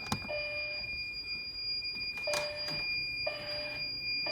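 Fire alarm voice-evacuation speakers sounding a low alert tone in the temporal-three pattern: three half-second beeps, then a pause, with the next group starting near the end. This is the alert tone that precedes a voice evacuation message. A continuous high-pitched tone sounds under it, and there are a couple of sharp clicks.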